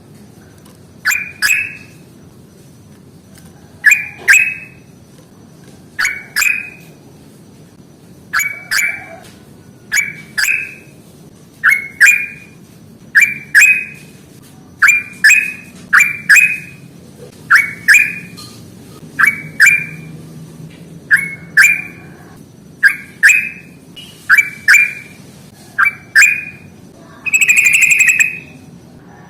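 Yellow-vented bulbul (trucukan) calling: short, loud paired chirps repeated every second or two, then a longer run of rapid chattering notes near the end.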